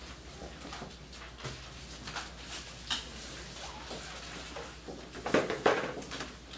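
Quiet classroom with scattered small clicks and rustles from students at their desks, and a louder brief clatter of knocks about five seconds in.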